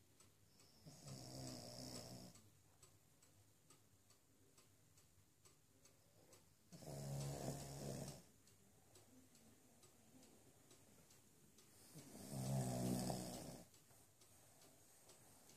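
Soft snoring in sleep: three long, rattling snores about five to six seconds apart, each a low buzzing tone with a breathy hiss on top.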